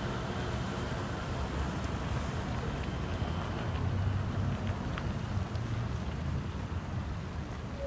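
Road traffic: a tipper truck's engine pulling away, then a car and a van driving past close by, engine and tyre noise as a steady low rumble that swells as the car passes about four seconds in.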